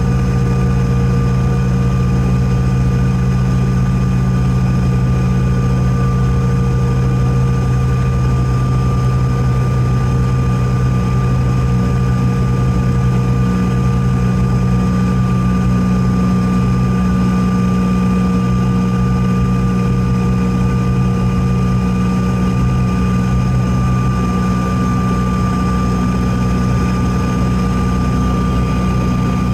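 Cabin noise of a Bombardier CRJ-900LR taxiing, its rear-mounted General Electric CF34 turbofans running at taxi idle: a steady low drone with a thin, steady whine above it.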